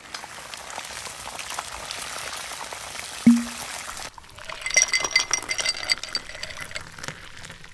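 Sound effects of an animated outro card: a steady rushing hiss with a single low thud near its end, cutting off suddenly about four seconds in, then a scatter of high, glittering chime-like tinkles.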